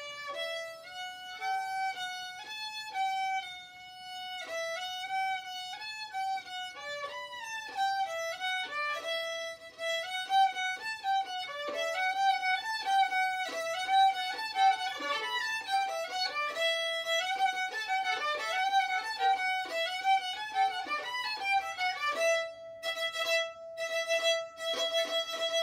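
Solo violin playing a bowed melody in steady eighth notes, with quick stepwise runs. Near the end it switches to rapid repeated bow strokes on one high note.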